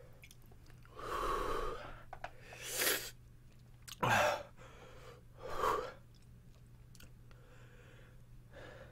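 A man breathing hard through an open mouth: four loud gasping breaths, one of them a sharp hissing intake of air, from a mouth burning after eating Carolina Reaper pepper jerky.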